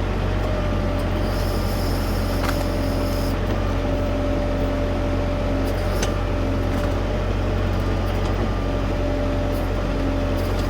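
Tractor diesel engine running steadily, with a constant whine over it and a couple of faint clicks.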